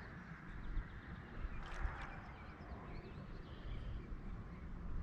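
Quiet outdoor ambience: a steady low rumble with a few faint, short high chirps in the middle.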